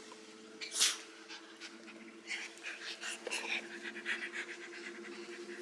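Small Pomeranian-type dog panting quickly with its mouth open while being scratched, a fast run of short breaths. About a second in there is one short, louder burst of noise.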